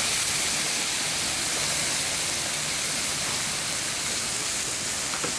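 Hot oil sizzling steadily in a large aluminium wok as chilli powder is poured into it.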